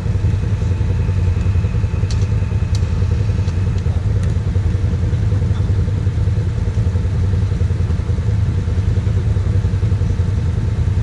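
A quad (ATV) engine idling steadily close by, a constant low hum with no revving.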